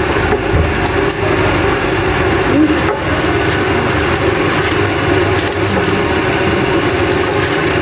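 Steady machine whirring with a low hum, with a few light clicks and knocks scattered through it.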